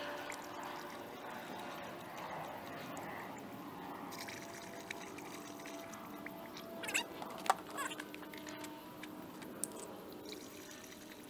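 Antifreeze poured from a plastic jug through a funnel into a radiator: a steady liquid pour, with a couple of brief sharp sounds about two-thirds of the way through.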